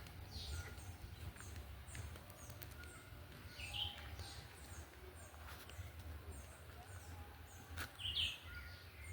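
Faint outdoor ambience of birds chirping in short repeated calls, over a low steady rumble.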